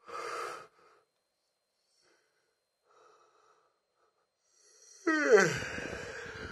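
The channel's intro call-sign sound effect. A brief noisy burst comes at the start; about five seconds in there is a loud sweep falling quickly in pitch that trails off into a noisy tail.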